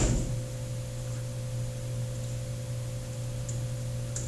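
Steady electrical hum with a fainter steady higher tone beneath it, and a thump right at the start. A few faint clicks come in the second half.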